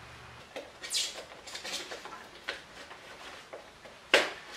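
Light, scattered metallic clicks and scrapes of a hand tool working the bolts of a motorcycle's front sprocket cover, with one sharper click about four seconds in.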